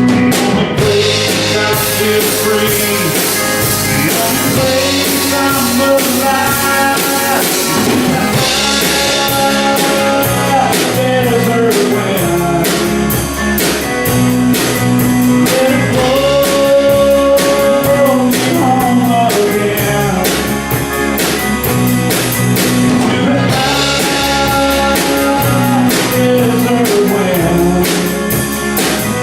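Rock band playing a song together: drum kit keeping a steady beat under guitar and bass, with a sung vocal melody over them.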